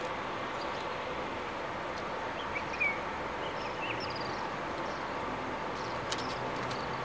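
Steady outdoor background noise, with a few faint bird chirps about two to three seconds in.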